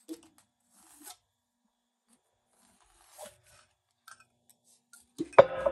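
Pencil scratching on paper in a few short, faint strokes as it traces around a small glass bowl. Near the end, a louder knock with a brief ringing tone.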